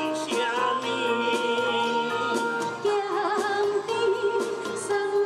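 A street busker singing into a microphone through small loudspeakers, his voice wavering with vibrato over recorded backing music.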